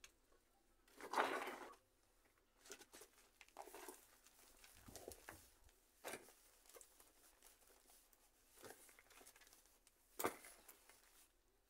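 Faint rustling and crinkling from hands handling things, in short scattered bursts, the loudest about a second in and another near the end.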